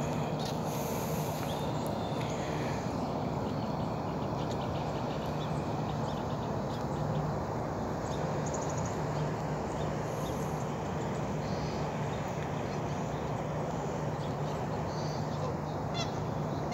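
Canada geese calling now and then over steady outdoor background noise, with a short run of honks near the end.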